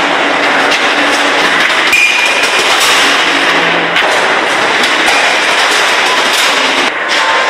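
Steel-ball factory machinery: a loud, dense metallic clatter of many small knocks over steady machine noise, with a low hum that stops about four seconds in.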